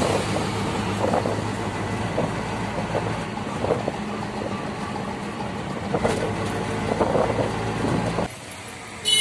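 Auto-rickshaw engine running steadily with road and wind noise while driving. It cuts off abruptly near the end, and a vehicle horn starts just as the clip ends.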